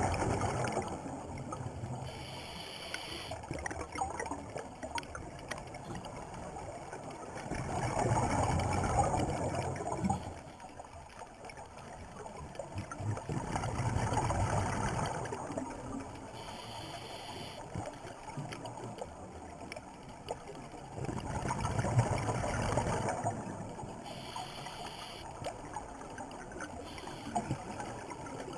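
Scuba diver breathing through a regulator underwater: four bubbling rushes of exhaled air about seven seconds apart, each followed by a short hiss of inhalation.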